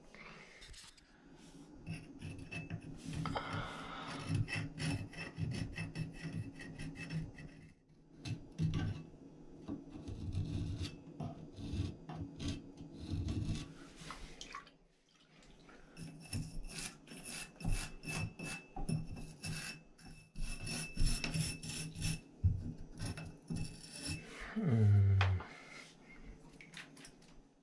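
Irregular scraping and scrubbing as mineral deposits are cleaned out of a shower valve's parts, a run of rasping strokes with a short pause about halfway. A brief falling squeak about 25 s in is the loudest moment.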